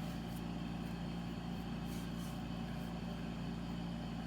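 Steady low background hum, with a few faint light rustles or ticks, as of a box and phone being handled.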